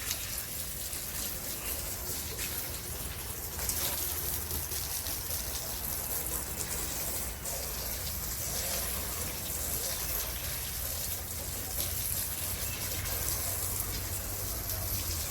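Hose spraying water in a steady rush, rinsing down a puppy pen.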